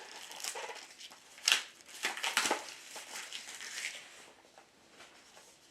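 Hands opening a small product box: rustling, crinkling and scraping of the packaging, with a sharp snap about a second and a half in and a few more scrapes just after, then quieter handling.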